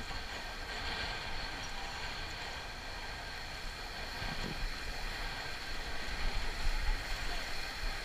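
Steady rush of river rapids as an inflatable raft runs through whitewater, with an uneven low rumble of wind on the microphone.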